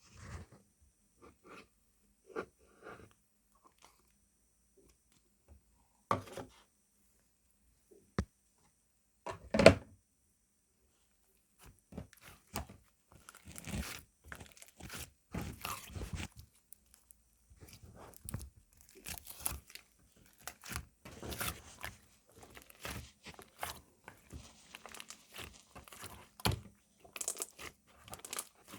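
Slime being played with by hand: a few scattered sticky clicks and squishes for about the first twelve seconds, then close, continuous crackling and popping as it is worked.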